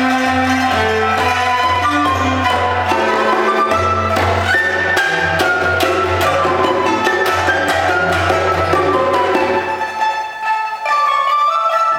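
Small Chinese folk ensemble of pipa, Chinese flute, cello and hand percussion playing a lively dance tune, the pipa also struck as a drum. About ten seconds in the low part drops out, leaving lighter, higher plucked notes.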